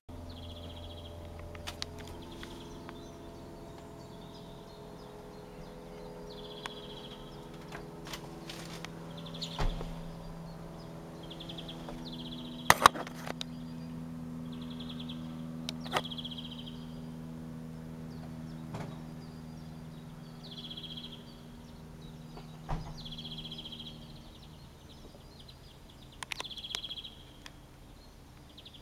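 Light propeller aircraft, taken for a Cessna, droning overhead: a steady engine hum of several tones that shift slightly in pitch and fade away about four seconds before the end. Small birds chirp every second or two, and there are a few sharp clicks, the loudest about 13 seconds in.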